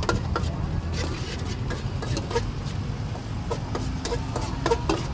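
Metal spatula clinking and scraping against a wok in quick, irregular taps, over a steady low rumble, with brief snatches of voices.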